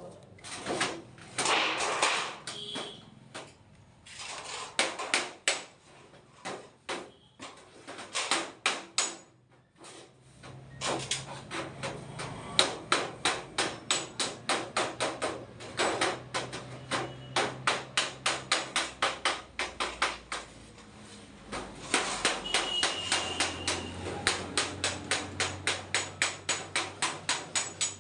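Hammer blows in quick runs of about three strikes a second, with short pauses between runs, as hand work goes on at a battery repair bench. A low steady hum comes in about ten seconds in.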